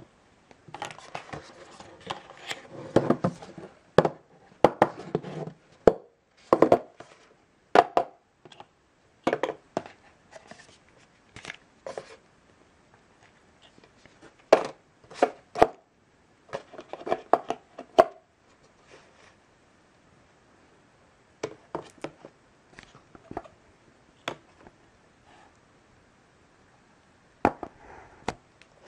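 Handling noise from unboxing a tablet: irregular knocks, taps and rustling as white cardboard box parts, a coiled USB cable and the tablet are picked up and set down on a wooden table. The knocks come thick in the first half and thin out toward the end.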